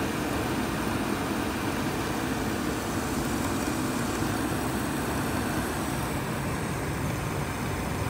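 ICP Comfortmaker gas furnace running in low fire, a steady hum from its blower and draft inducer motor. The unit is vibrating, which the technician puts down to a blower wheel that is out of balance.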